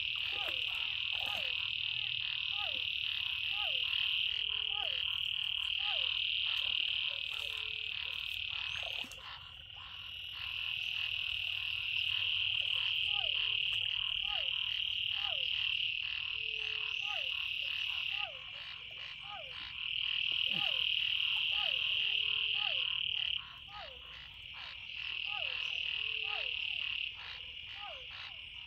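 Chorus of frogs in a rain-flooded field: a loud, continuous high trill that stops and starts again in stretches of a few seconds, under short downward-sliding calls repeated about once a second.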